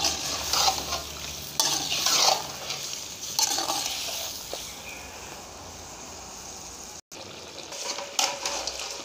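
A metal ladle scraping and stirring boiled meat and pumpkin in a metal karahi, over a steady sizzle of the oil and masala as the meat is fried down (bhuna). Several scraping strokes come in the first few seconds and again near the end, with a quieter stretch between, and the sound cuts out for an instant about seven seconds in.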